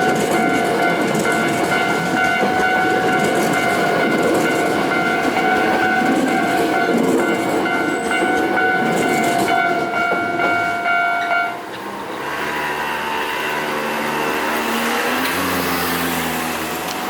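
Electronic level crossing alarm ringing over the running noise of a passing train. The alarm and the train noise cut off suddenly about eleven and a half seconds in, leaving a lower, steady engine hum.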